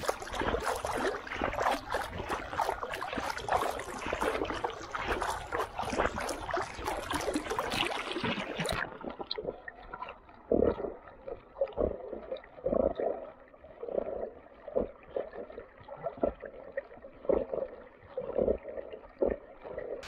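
Water splashing and sloshing around a camera on a swimming black Labrador retriever's back. About nine seconds in the sound turns suddenly muffled as the camera dips to the waterline, leaving a rhythmic gurgling slosh a bit more than once a second as the dog paddles.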